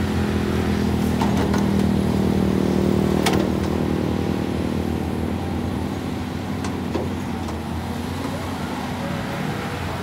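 Caterpillar 320D tracked excavator's diesel engine running steadily while the machine digs and swings its arm, with a couple of brief sharp clanks.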